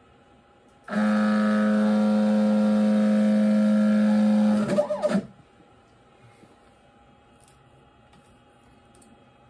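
X-Carve CNC stepper motors whining steadily as the Z axis drives the bit down during a Z-probe routine. About four and a half seconds in, the pitch wavers briefly as the bit touches the probe plate and backs off, then the whine cuts off suddenly.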